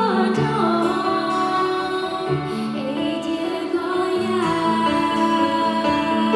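A woman singing live with sliding, held notes, backed by a small unplugged band of acoustic guitar, keyboard and drums.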